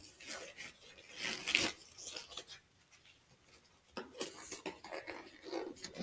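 Disposable exam gloves being pulled onto the hands: faint, irregular rustling and crackling of thin rubber stretching over the fingers, with a short pause about three seconds in.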